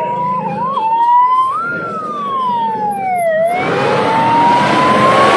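Fire engine siren wailing, its pitch sliding slowly up and down, as the fire tender approaches. About three and a half seconds in, the louder noise of the vehicle's engine and tyres rises beneath the siren.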